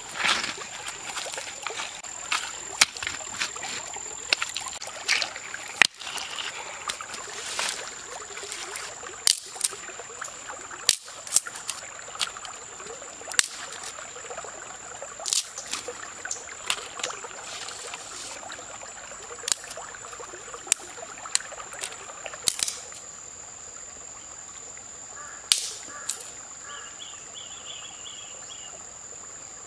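Irregular sharp clacks and snaps of river stones knocking on pebbles and dry sticks being handled, over the low rush of a shallow stream. A steady high insect whine runs underneath.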